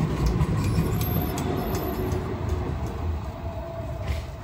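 Tram rolling past on its rails, a low rumble that fades as it pulls away. A faint thin whine runs under it from about a second and a half in.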